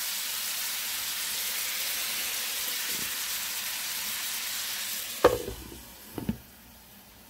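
Bilimbi frying in mustard oil and spices in a pan, sizzling steadily. About five seconds in a glass lid knocks down onto the pan, with a smaller knock a second later, and the sizzle becomes quieter and muffled under the lid.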